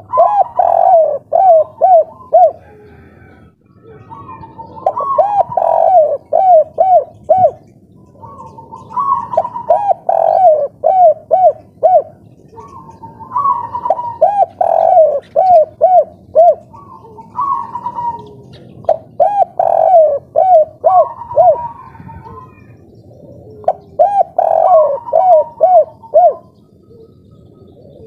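Spotted dove (tekukur) singing its 'kuk 3' song: each phrase is a higher opening coo followed by a quick run of lower, hooked coos. It repeats about six times, four to five seconds apart.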